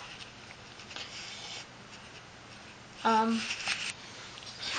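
Faint rubbing and handling noise, with a short spoken sound about three seconds in.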